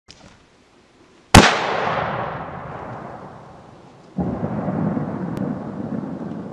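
A single loud rifle shot about a second in, its report rolling away in a long echo over about three seconds. A second, duller boom follows about three seconds later and rumbles on.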